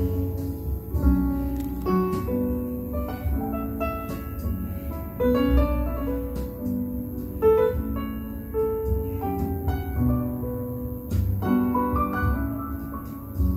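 Piano music playing back over a hi-fi system, a steady run of struck notes that ring and fade.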